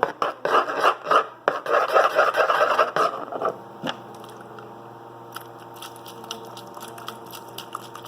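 Glue-and-foam slime being mixed directly on a tabletop, making a scraping table noise: quick rhythmic scraping strokes for about three and a half seconds, then only faint scrapes and occasional ticks.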